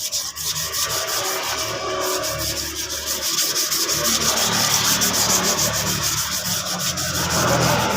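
Sandpaper rubbing over body filler on a motorcycle fuel tank, in quick, even back-and-forth strokes.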